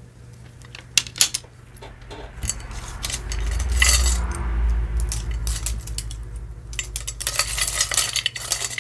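Pieces of metal costume jewelry clicking and clinking as they are handled and rummaged through. A couple of sharp clicks come about a second in, a low handling rumble follows through the middle, and a dense jangle of clinks builds near the end.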